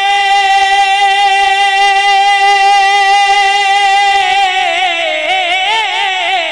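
A man singing a naat through a microphone and loudspeakers, holding one long high note steady for about four seconds, then wavering through an ornamented run and dropping in pitch near the end.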